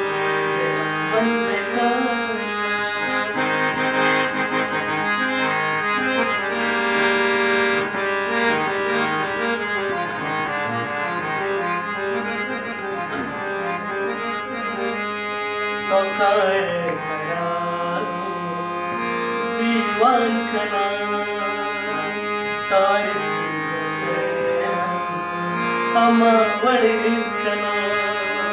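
Hand-pumped harmonium playing an instrumental passage of a Balochi ghazal, its reeds sounding sustained chords and melody with no singing.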